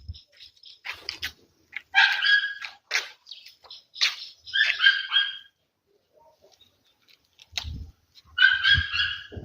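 A dog giving high-pitched yelping barks in three short bouts, about two seconds in, near the middle and near the end, with a few short knocks and clicks between them.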